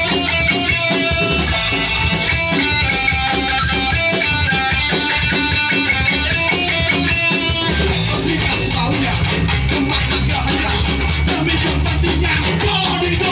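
Live band with electric guitar, bass guitar and drums playing loud through amplifiers: a picked guitar riff of separate notes, thickening about eight seconds in into the full band at a fast, driving beat.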